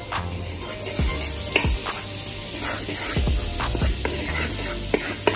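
Melted butter sizzling and bubbling in a hot aluminium pot, with a wooden spoon stirring through it and knocking sharply against the pot several times.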